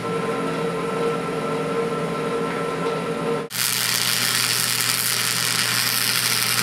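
Flux-core wire-feed welder arc crackling and sizzling steadily on steel. It starts about three and a half seconds in; before that there is a quieter steady hum with the arc stopped.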